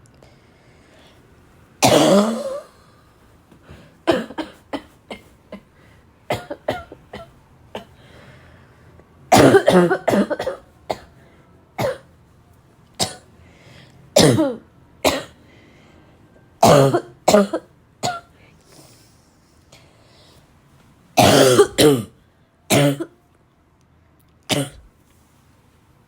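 A young woman's dry, barking cough, coming in bouts: single coughs and quick runs of several, with pauses of a second or more between. The loudest bouts come about two seconds in, around ten seconds in and near the twenty-second mark.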